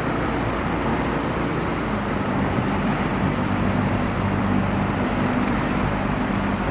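Boat engine running steadily under power, pushing against a strong river current, with wind and rushing water around the hull. Its tone shifts lower about two seconds in.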